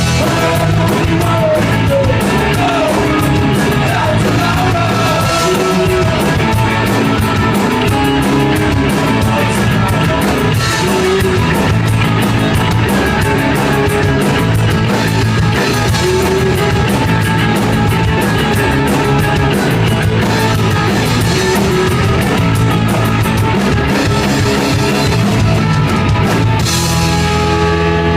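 Punk rock band playing live: distorted electric guitars, bass and busy drums, with some singing. Near the end the drums stop and held guitar chords ring on.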